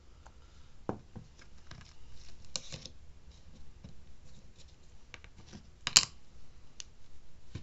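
Small handling noises of nail stamping on a metal stamping plate: scattered clicks and taps of a polish bottle and stamping tools, a brief scrape about two and a half seconds in, and one sharp click about six seconds in, the loudest.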